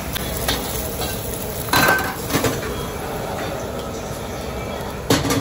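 Metal spatula scraping and clanging against a wok during stir-frying, over a steady hiss from the gas burner and frying. There are loud metal clangs about two seconds in and again near the end.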